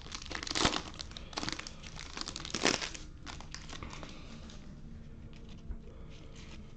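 Foil wrapper of a Topps Chrome baseball card pack crinkling and tearing as it is ripped open, in sharp bursts over the first three seconds. After that, fainter rustling as the cards are handled.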